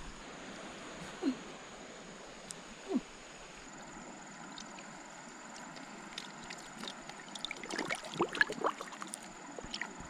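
Steady flow of river water, with a run of small splashes and clicks about eight seconds in.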